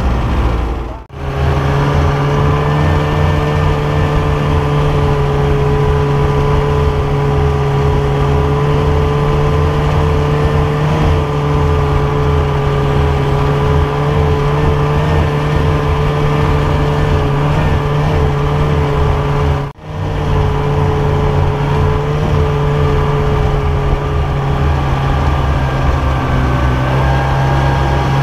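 Snowmobile engine running at a steady cruising speed, heard from the rider's seat. The sound cuts out briefly twice, about a second in and again about twenty seconds in, and the engine note rises slightly near the end.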